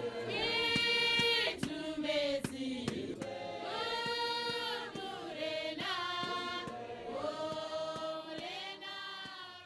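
A choir singing long held notes in several voice parts, fading out near the end.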